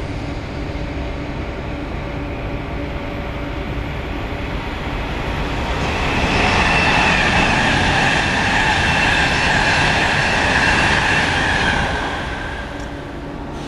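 A Virgin Trains express approaching and passing through the station at speed: a steady rail rumble swells about five seconds in, with a high steady whine over it, stays loud for about six seconds and fades near the end.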